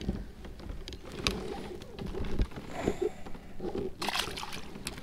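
Handling knocks and a low thump against the plastic kayak while a largemouth bass is held, then a splash about four seconds in as the bass is dropped back into the water.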